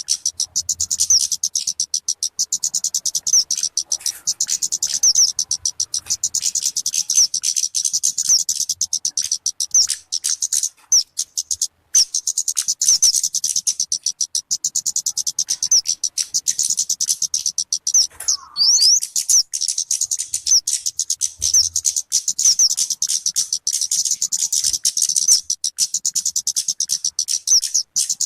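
Talokan (kemade) bird calling: a fast, continuous run of high chirps, many a second, broken by two short pauses, about 12 and 18 seconds in.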